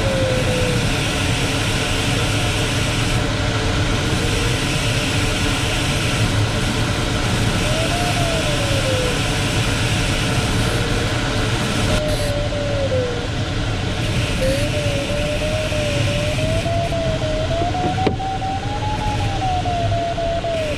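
Steady rush of airflow in a sailplane's cockpit, with a variometer's audio tone sliding up and down in pitch in several stretches and climbing highest near the end.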